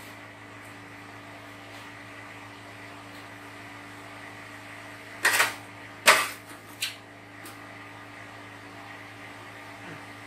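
A metal spoon knocking and scraping against a large aluminium cooking pot a few times about halfway through, as thick vegetable soup is scooped out, over a steady low hum.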